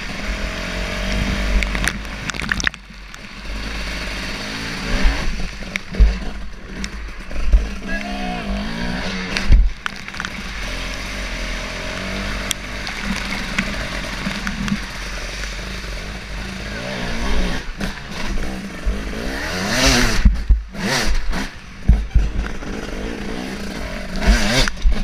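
Enduro motorcycle engine revving up and down as the bike ploughs through shallow water, with water spraying and repeated low thumps on the on-board microphone.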